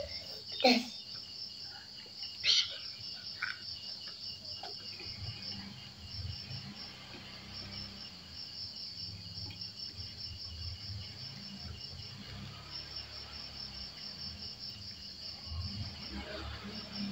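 Insects chirping steadily in a high, fast pulsing trill, with a couple of short knocks in the first few seconds.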